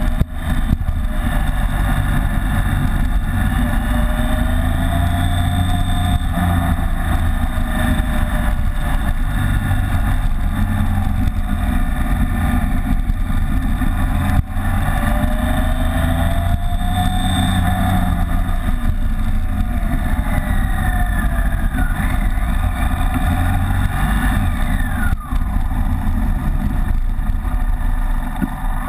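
BMW K75's three-cylinder engine running under way, its pitch rising and falling several times with the throttle, over a heavy low rumble of wind noise. The sound drops out briefly about halfway through and again a few seconds before the end.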